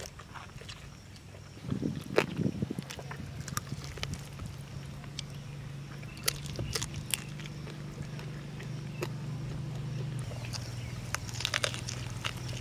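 Biting and chewing fried quail close to the microphone: irregular crisp crunches and snaps as the meat and small bones are bitten through. A low steady hum runs underneath from about two seconds in.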